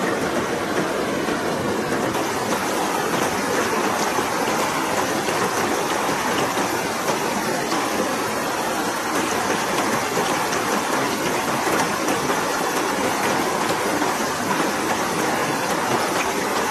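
Steady rushing of a fast river running over rocks.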